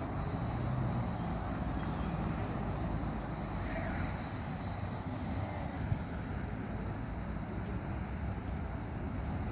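Steady outdoor background noise: a continuous low rumble with hiss, without distinct events.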